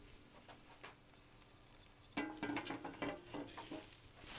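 Metal clattering and ringing from the steel parts of a Pit Barrel Cooker being handled, starting suddenly about two seconds in, followed by a steady hiss.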